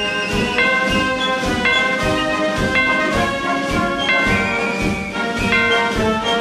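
Music with brass instruments playing held chords over a steady beat.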